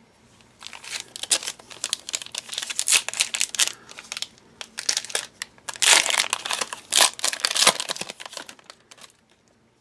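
Crinkling of a foil trading-card pack wrapper as it is handled and torn open. The irregular crackling is loudest a little past the middle and dies away near the end.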